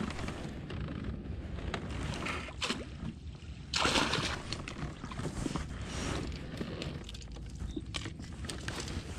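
Water splashing and sloshing as a hooked bass is played beside a kayak and scooped into a landing net, with one loud splash about four seconds in as the net lifts the fish. Small knocks and clicks of gear against the hull throughout.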